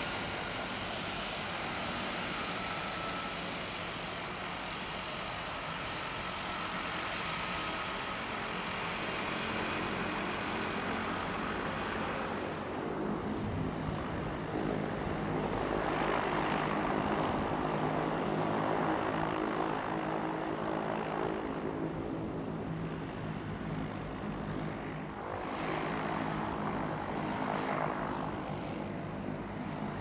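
Twin-engine turboprop floatplane running as it moves across the water, a steady propeller and engine drone with several held tones. The drone swells louder twice in the second half.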